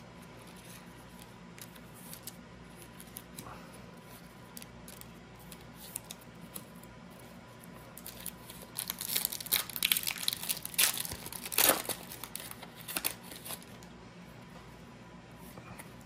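Foil wrapper of a trading card pack being torn open and crumpled, a crinkling run of a few seconds starting about halfway through. Before it, only a few faint taps of cards being handled.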